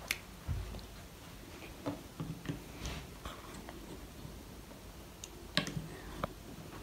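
A few faint, scattered clicks and light knocks of utensils and food containers being handled on a small table, the clearest about two seconds in and just before the end.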